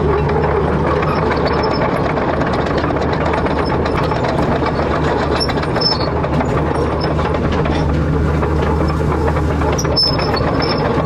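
Excavator's diesel engine running steadily, with a constant low hum and faint clicks and rattles over it.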